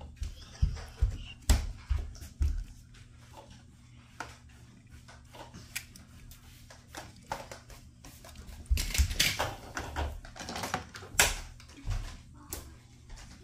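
Die-cast metal toy cars and a toy helicopter handled in a plastic storage box: irregular small clicks and knocks, with a busier patch of clattering about nine seconds in.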